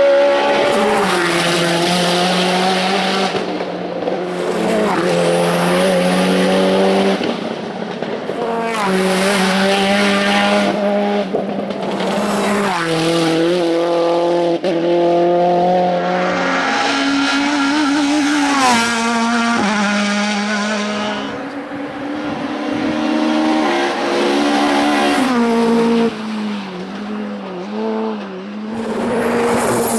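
Touring race cars accelerating hard uphill through tight bends one after another. Each engine revs high and shifts up through the gears, with the pitch climbing and dropping at each shift, and the tyres squeal at times.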